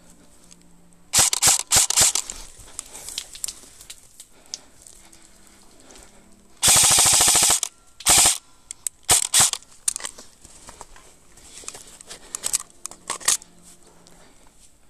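Airsoft guns firing: several sharp shots about a second in, a rapid full-auto burst lasting about a second in the middle, then more short bursts and single shots.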